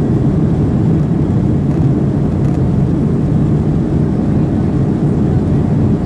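Boeing 737-800's CFM56 engines and rolling wheels heard inside the cabin over the wing as the airliner moves along the ground: a loud, steady low rumble.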